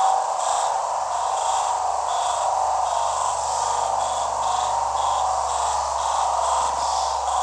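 A steady mid-pitched drone with short high chirps repeating about twice a second, a cricket-like sound effect.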